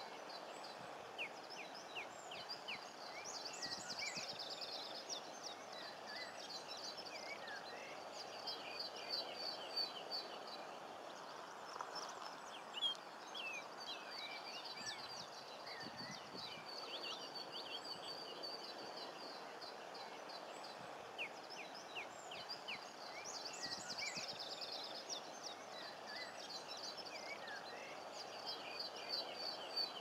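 Common linnet song: phrases of fast twittering notes and rapid trills that come and go, over a steady low background hiss.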